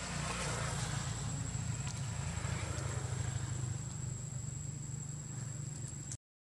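Motorbike engine running on the road, a low hum that grows louder over the first few seconds and then eases off, over a steady high insect whine. The sound cuts out abruptly for a moment near the end.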